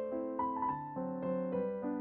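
Background music: a gentle piano melody with chords.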